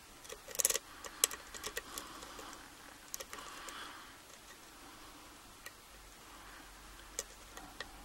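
Small metallic clicks and ticks of a lock pick and tension tool working the pins inside a Master Lock 140 padlock during single pin picking. They come in quick clusters over the first few seconds, then only now and then.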